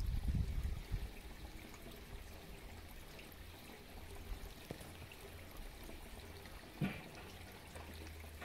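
Small fountain in a swimming pool splashing, a steady trickle of water. A low rumble in the first second and one short knock about seven seconds in.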